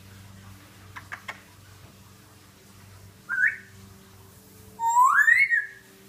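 African grey parrot whistling: three quick clicks about a second in, then a short rising whistle, then a longer, louder whistle that rises in pitch near the end.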